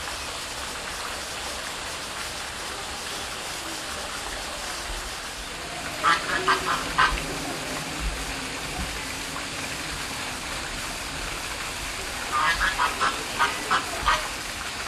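A bird giving two runs of short calls, about five some six seconds in and about seven more near the end, over a steady hiss.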